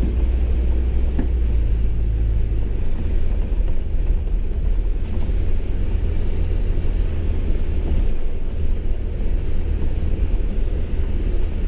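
Four-wheel-drive vehicle driving through deep snow: a steady low engine and road rumble, with a low hum that holds briefly early on and then drops away.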